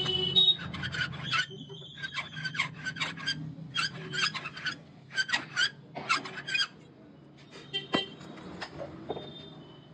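Hand-turned valve seat cutter scraping metal off a cylinder head's valve seat, in short rasping strokes about three a second that stop about two-thirds of the way through. A single sharp knock follows.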